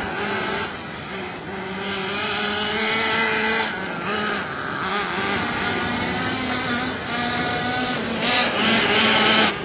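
Nitro RC car's small glow-fuel two-stroke engine buzzing at high revs, its pitch rising and falling as the throttle opens and closes. It is loudest near the end.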